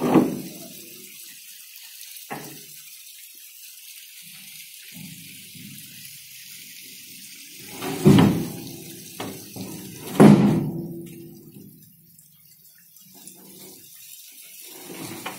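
Concrete hume pipes being levered and rolled along a truck's flatbed, knocking heavily against one another with a hollow, booming ring, loudest near the start and about eight and ten seconds in, with lighter knocks and rumbling between them. A steady hiss runs underneath.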